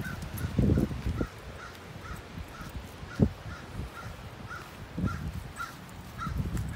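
An animal calling in a steady run of short, even chirps, about three a second, over low rustling and a single sharp knock about three seconds in.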